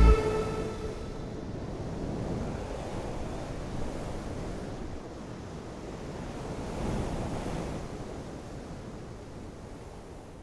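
Sea surf washing on a rocky shore, rising and falling in slow swells, then fading out near the end.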